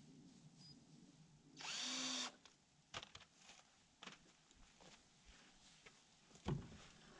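A cordless drill runs once for under a second, spinning up at the start, about a second and a half in. Light knocks follow, and a loud low thump comes near the end.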